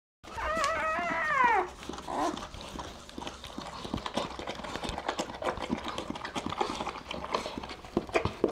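Newborn puppy crying: one high, wavering cry of about a second and a half that falls in pitch as it ends, then a short second cry. After that come rapid wet licking smacks as the mother dog licks the newborn clean.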